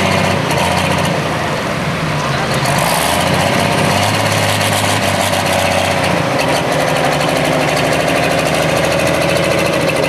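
Pro Stock pulling tractor's turbocharged diesel engine running hard at full throttle under the load of the sled, steady and loud, with a high whine that grows stronger in the second half.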